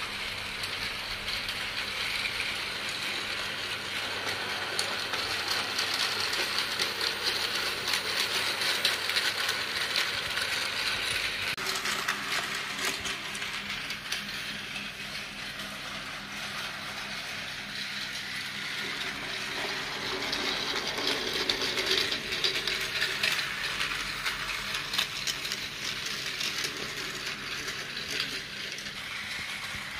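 Battery-powered Tomy toy trains running on plastic track: a steady whirr from the small geared motor with a fast, fine clicking and rattling of wheels on the track, swelling and fading as the train comes and goes.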